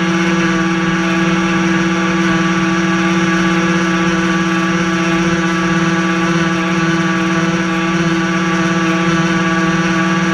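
The twin brushed electric motors of an RC boat run at a steady speed, making a constant whine that holds one pitch. Heard from on board, it sits over the rush of water along the hull.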